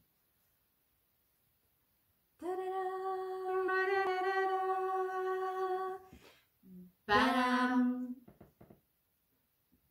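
A woman's voice humming one long steady note for about three and a half seconds, then, after a short pause, a shorter vocal sound that slides down and settles on a lower note.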